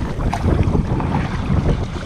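Strong gusty wind buffeting the microphone with a heavy low rumble, and choppy waves splashing against the kayak's hull with scattered short slaps.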